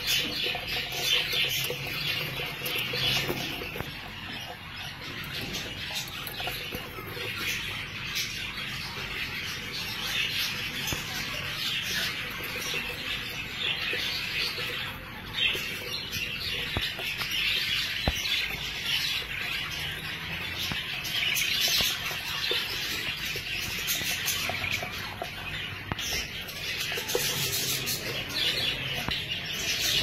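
A flock of budgerigars chirping and chattering continuously, a dense high twittering of many birds at once.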